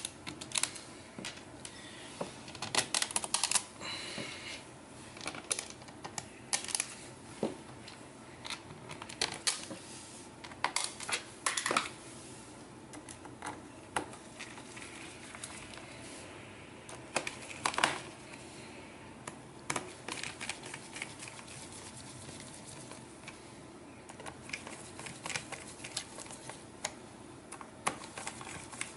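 Scattered clicks and taps as an Asus GL502VT laptop's plastic bottom cover is pressed into place by hand and its screws are refitted with a screwdriver. The clicks come singly and in quick little clusters.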